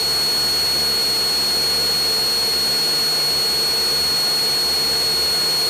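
Cessna 172 Skyhawk's single piston engine and propeller running steadily at climb power, heard inside the cockpit, with a thin steady high-pitched whine over the drone.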